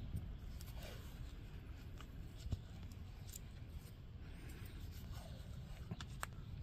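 PVC pipe-wrap tape being pulled off its roll and wound around a steel gas pipe: faint peeling and crinkling with a few sharp ticks, over a steady low rumble.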